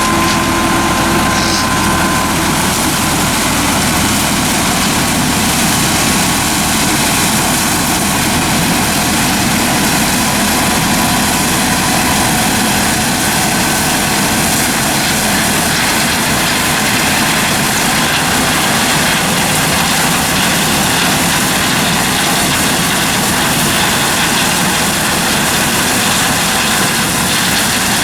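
Heavy engine running steadily, a loud unchanging mechanical drone with a few faint steady tones in it.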